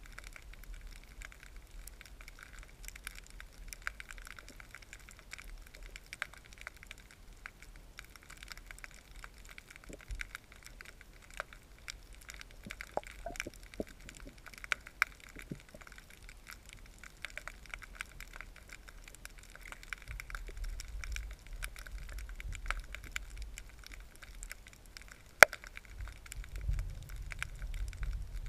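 Underwater ambience through a submerged camera: a steady scatter of sharp clicks and crackles, with one louder click about three-quarters of the way through. A low rumble of moving water swells in over the last third.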